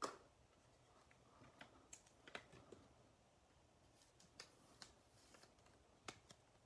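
Faint handling sounds of trading cards and a plastic card holder: a sharper click right at the start, then scattered light clicks and rustles.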